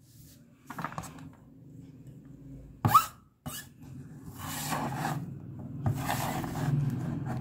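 Stainless steel cleaver blade scraping and rubbing across a plastic cutting board as chopped potato is scooped up, in several rasping strokes. A single sharp knock about three seconds in, as the food is tipped onto a steel plate.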